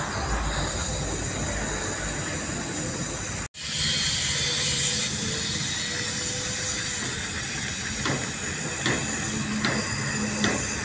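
Gas-welding torch flame hissing steadily as a patch is welded onto a steel diesel tank. The sound cuts off abruptly about three and a half seconds in and comes back louder and brighter, with a few faint ticks near the end.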